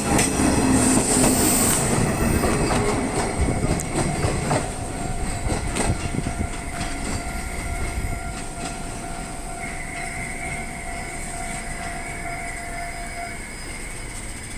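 Train running through a level crossing, its wheels rolling on the rails, loudest at the start and fading steadily as it moves away.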